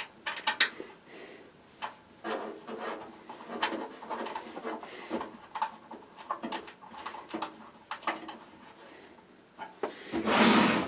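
Desktop computer case being handled and closed up: scattered clicks and knocks of parts, with a louder scraping slide lasting about a second near the end.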